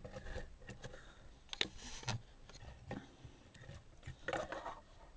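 Plastic parts of a Transformers Deluxe Class Ratchet action figure clicking and rubbing as its joints and panels are adjusted by hand: scattered small clicks, with a short scraping rustle about four seconds in.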